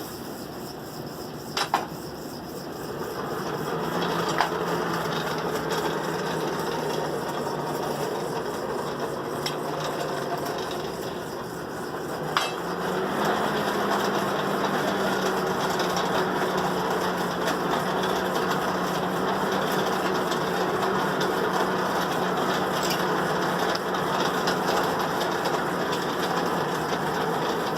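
Blacksmith's forge and its blower running while the steel heats: a steady rushing roar over a motor hum, with a few sharp metal clinks. About twelve seconds in, the hum rises in pitch and the roar grows louder as the fire is pushed harder.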